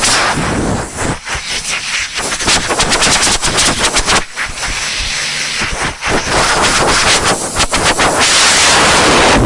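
Air compressor running with a rapid, rattling chatter and a hiss of air, which turns steadier and more hissing near the end.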